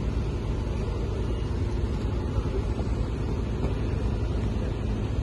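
Boat engine running steadily in the harbour, a continuous low rumble.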